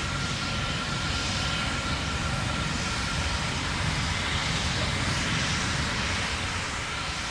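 Distant rumble of the Terran 1 rocket's first-stage engines, a steady rushing noise with a faint thin tone running through it.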